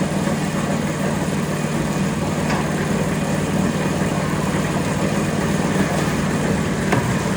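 Concrete mixer's engine running steadily with a low, even hum, with a couple of faint clicks.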